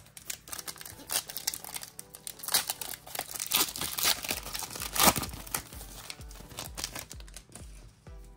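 Foil trading-card pack being torn open and its wrapper crinkling as the cards are pulled out, a dense crackle that is loudest about halfway through.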